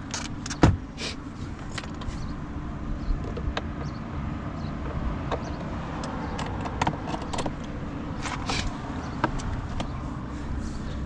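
Light metallic clicks and taps of a small screwdriver bit and a screw being handled, scattered irregularly, with one sharp knock under a second in, over a steady low outdoor rumble.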